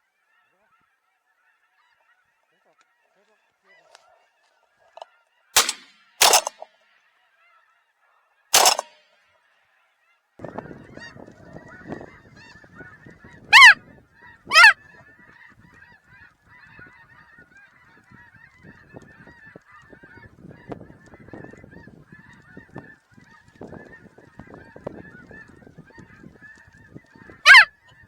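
Snow geese calling: near silence at first, then a few loud single honks about five to nine seconds in. From about ten seconds on comes a flock's steady chatter, with loud wavering calls over it twice near the middle and once near the end.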